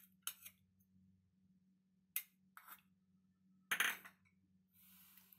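A steel spoon clinking against a stainless steel pan a few times, with the loudest clink about four seconds in, followed by a soft scrape near the end.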